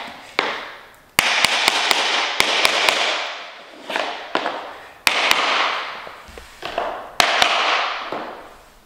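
Claw hammer striking a plastic tapping block against the edge of laminate planks to knock them down flush: sharp taps in quick runs, each run with a noisy hiss that starts suddenly and fades. The flooring has to be tapped hard before it locks all the way down.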